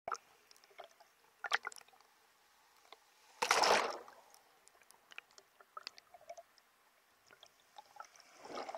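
Sea water sloshing and gurgling, picked up by a camera held underwater. Scattered small clicks run through it, with a loud surge about three and a half seconds in and a smaller one near the end.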